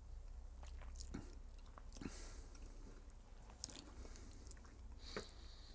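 Faint mouth sounds of a man sipping and tasting a cocktail from a glass: small scattered lip and tongue clicks, with a slightly longer sip about two seconds in.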